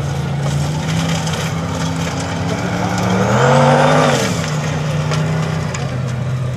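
Turbocharged engine of a Formula Offroad hillclimb buggy working hard up a steep sand slope, its note rising and getting louder about three seconds in and dropping back just after four. The turbo muffles the engine to a smooth hiss.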